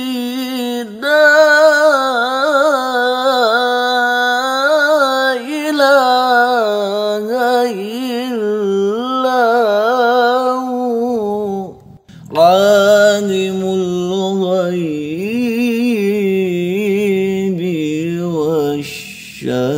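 A man's voice reciting the Quran in melodic tilawah style, drawing out long ornamented notes with a wavering pitch. He breaks off for a breath about twelve seconds in and goes on at a lower pitch, with another short break near the end.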